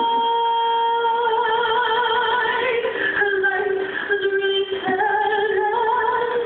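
Music with a singing voice holding long notes, first steady, then wavering, with the pitch stepping to new notes about three seconds in and again near five seconds.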